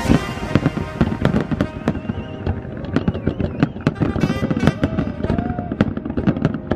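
Fireworks display: many sharp bangs and crackles of aerial shells bursting in quick succession, with music playing underneath.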